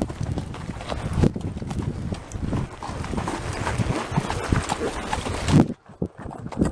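Horses' hooves clip-clopping at a walk on dry dirt and sand, in an uneven run of thuds. The sound drops away sharply a little before the end.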